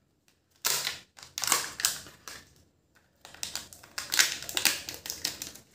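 Kinder Joy egg's foil wrapper crinkling and tearing as it is peeled off by hand, then the seal pulled from the plastic toy capsule: several short bursts of crackling with brief pauses between.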